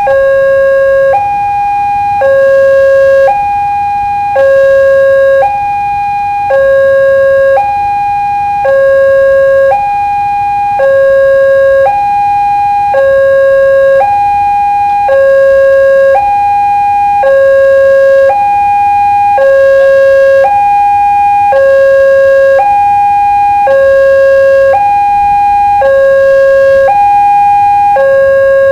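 Railroad level-crossing warning alarm sounding a steady two-tone hi-lo signal, a higher and a lower note alternating about once a second, warning that a train is approaching and the barriers are down.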